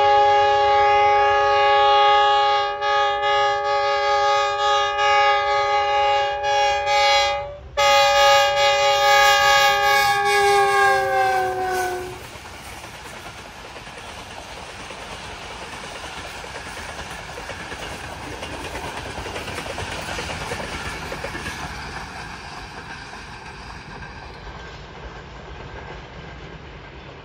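Pakistan Railways GEU20 diesel-electric locomotive sounding its multi-tone horn in one long blast with a brief break near the middle. The pitch falls as it passes, and the horn stops about twelve seconds in. The train's wheels then run on past on the track, fading out.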